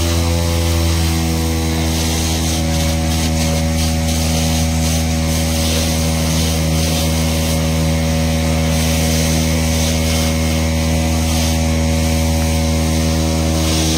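Engine-driven fire pump running steadily at constant speed, feeding two hose lines, with the steady hiss of water jets spraying onto burning tyres.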